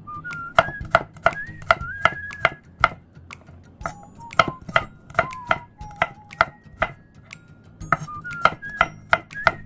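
Knife chopping on a cutting board: sharp, uneven strokes about two or three a second, over light background music with a simple melody.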